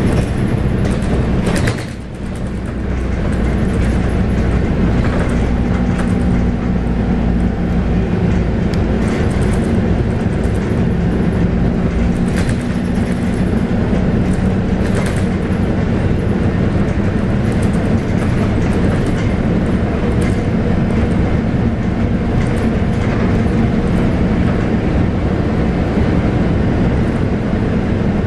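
Scania K280UB bus under way, heard from inside: its 9.3-litre five-cylinder diesel engine drones steadily over a continuous road rumble. The sound drops briefly about two seconds in, then picks up again.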